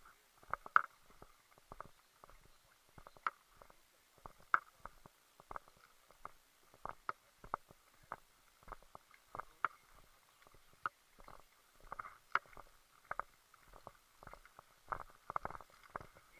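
Faint, irregular clicks and knocks, a few each second, with a handful of louder ones.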